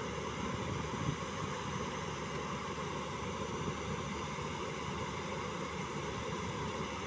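JCB 205 tracked excavator's diesel engine running steadily as the machine drives itself off a low-bed trailer on its tracks.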